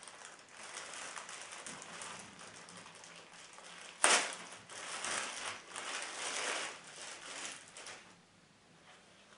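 Clear plastic bag crinkling and rustling as a cap is worked out of it, with a sudden loud crackle about four seconds in as the bag is pulled apart, then heavier crinkling that stops about a second before the end.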